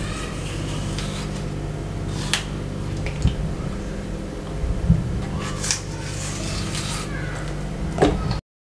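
A paring knife peeling an apple by hand, with scattered light scrapes and clicks over a steady low hum, then a plop near the end as the peeled apple drops into a bowl of water. The sound cuts off suddenly just after.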